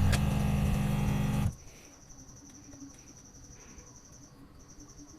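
Background music for about the first second and a half, cutting off suddenly. Then a faint, steady, high-pitched cricket trill that pauses briefly near the end.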